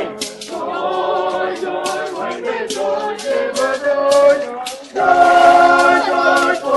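A group of voices singing a hymn in harmony, with repeated sharp percussive hits through it; a louder phrase begins about five seconds in.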